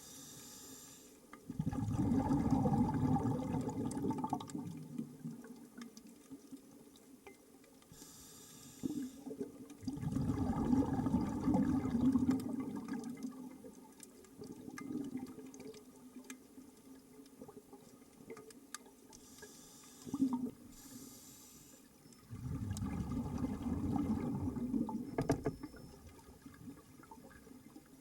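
Scuba diver breathing underwater through a regulator. A short hiss on each inhale is followed by a longer rush of exhaust bubbles on each exhale, three breaths in all, each roughly ten seconds apart.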